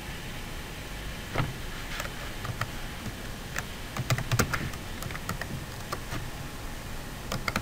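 Computer keyboard typing: irregular keystrokes starting about a second in, bunched together around the middle, over a steady background hiss.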